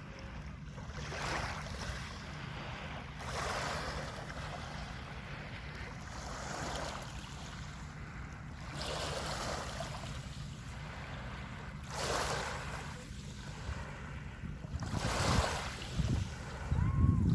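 Sea waves breaking and washing in, one surge every two to three seconds. Low wind rumble on the microphone runs under them and grows stronger near the end.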